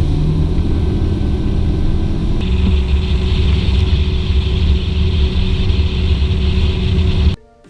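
Boat motor running steadily underway, loud and heavy in the low end, its tone brightening about two and a half seconds in; it cuts off abruptly near the end.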